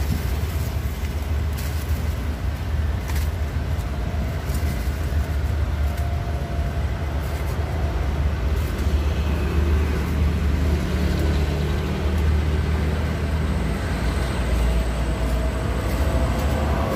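Steady low rumble of road traffic, vehicle engines running nearby, with a few brief clicks in the first few seconds.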